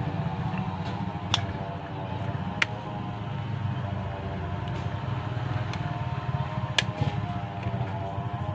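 A steady droning hum with three sharp clicks spread through it.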